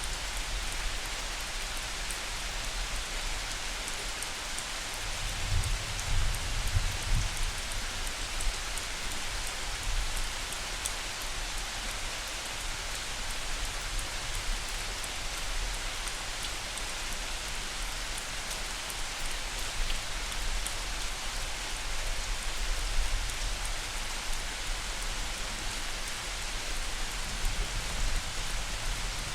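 Steady rain falling, with scattered individual drops, as a light thunderstorm. A low rumble of distant thunder swells and fades about five to eight seconds in.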